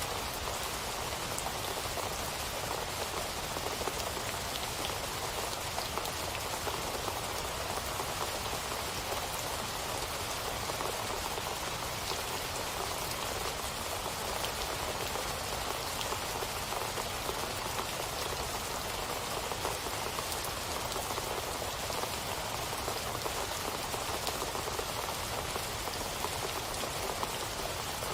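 Steady rain falling, an even hiss of drops dotted with many small individual drop ticks.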